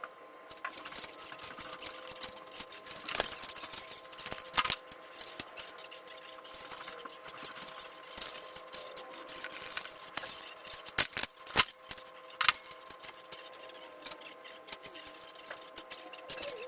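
Scattered clicks and knocks of tools and metal parts being handled, with a quick cluster of sharp knocks about eleven to twelve seconds in, over a faint steady hum.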